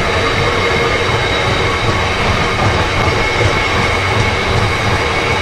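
Loaded HYA bogie hopper wagons of a stone train rolling past on the rails: a steady rumble of wheels and bogies, with a steady high-pitched ringing tone running through it.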